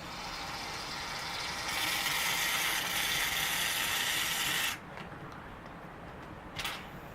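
Aerosol can of shaving cream spraying foam: a steady hiss that grows louder about two seconds in and cuts off suddenly, followed by a brief second hiss near the end.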